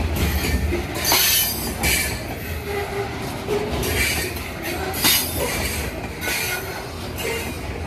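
Freight train of covered hopper cars rolling past at close range: a steady low rumble of steel wheels on rail, with a hissing clatter about once a second as each set of wheels goes by, and short wheel squeals now and then.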